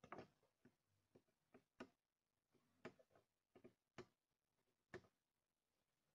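Faint, irregular clicks and taps of bare printed circuit boards and a small hand tool being handled on a desk, about a dozen short knocks with no steady rhythm.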